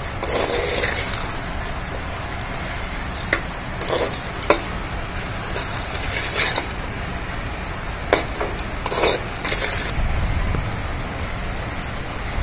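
A steel spoon stirring chicken pieces in a clay pot, with short scrapes and clinks against the pot wall in several separate strokes, over a steady background noise.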